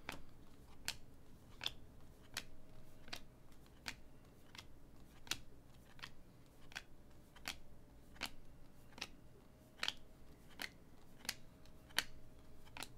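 Chromium Sapphire-refractor baseball cards being dealt one by one off a stack onto a pile, each card giving a faint sharp click, about one every three quarters of a second.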